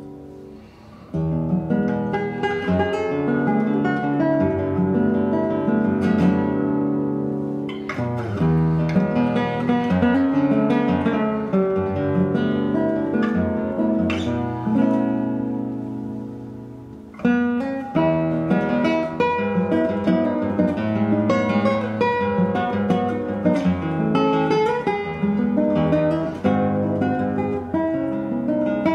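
Solo classical guitar played fingerstyle, melody over chords. A phrase fades out and the playing resumes about a second in. Later another phrase dies away and a firm strummed chord starts the next one.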